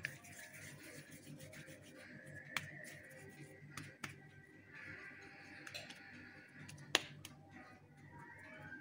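Hands working a soft ball of dough on a granite countertop, quiet handling broken by a few sharp clicks, the loudest about seven seconds in.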